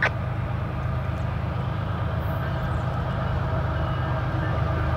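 A distant diesel locomotive on an approaching CSX freight train: a steady low engine rumble.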